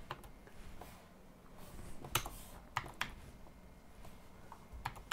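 Computer keyboard typing: irregular key clicks in small bursts with short pauses between them.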